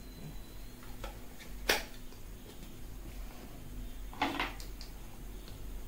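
Small hard plastic parts being handled: a few light clicks and knocks, one sharper click a little under two seconds in, and a short scrape about four seconds in.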